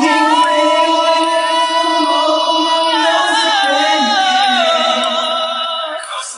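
Background music: a Japanese pop song with a voice holding long, drawn-out notes.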